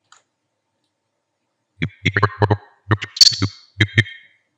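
Stuttering, clicky fragments of a recorded voice as the playhead is scrubbed across the Premiere Pro timeline: about a dozen short, loud chops packed into the second half, after a silent start.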